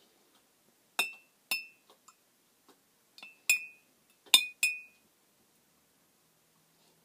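Metal spoon clinking against the inside of a glass mason jar while stirring water: about six sharp, ringing clinks over some four seconds, the last few loudest.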